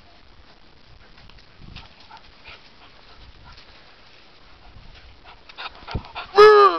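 Beagle puppy giving one short, high-pitched cry near the end, slightly falling in pitch, close to the microphone. Before it there is only faint rustling and a few light clicks.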